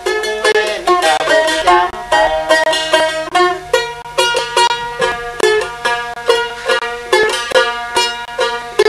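A small wooden plucked lute playing a quick, evenly pulsed folk melody, several plucked notes a second. A voice sings over it for the first three seconds or so, then the lute carries on alone.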